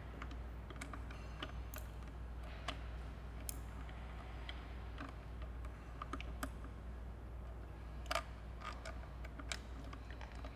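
Irregular small metallic clicks and ticks of hand tools and bolts as supercharger hold-down bolts are fed into the engine and started, over a steady low hum.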